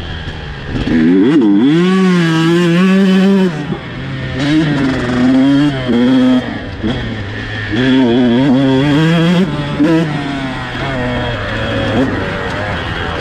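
Dirt bike engine under hard riding, its revs rising and falling again and again as the throttle opens and closes; loudest from about one to three and a half seconds in and again around eight to ten seconds.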